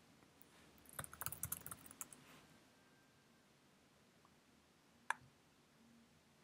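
Quick burst of typing on a computer keyboard about a second in, a short search being typed, then a single click about five seconds in.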